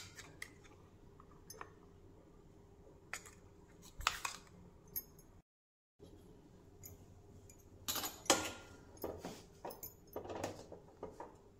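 A metal spoon stirring pasta in a stainless steel pot, knocking and scraping against the pot's sides in a quick run of clinks through the second half. Earlier there are a few scattered clinks of steel utensils being handled.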